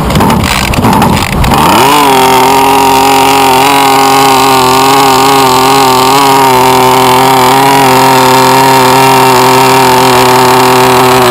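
Small two-stroke RC boat engine revving up about a second and a half in, then holding a steady high-pitched note flat out at full throttle while its carburettor needle is being tuned.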